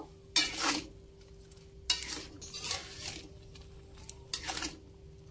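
Metal spatula scraping against an aluminium wok as soup with noodles and vegetables is stirred, in about four short strokes spread across a few seconds.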